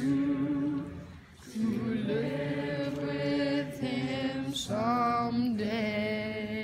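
Teenagers singing together in long held notes, with a brief pause about a second in.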